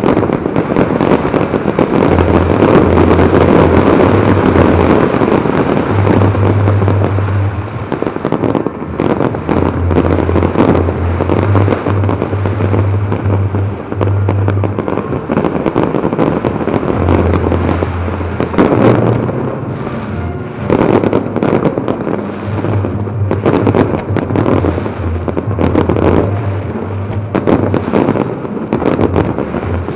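Aerial fireworks display: a dense, continuous run of launches, bangs and crackling bursts, heaviest in the first few seconds and again in the second half.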